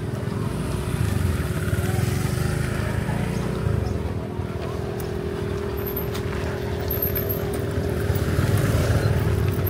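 A motor engine running close by: a steady hum over a rumble that swells about a second in and again near the end.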